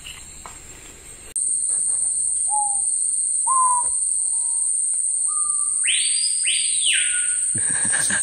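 Amazon rainforest sounds: a loud, steady high-pitched insect drone cuts in about a second in. Over it, birds whistle short notes, then give two loud swooping calls near the end.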